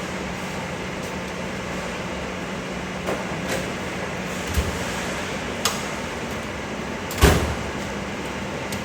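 Scattered knocks and clunks of items being handled and put away, the loudest about seven seconds in, over a steady low hum.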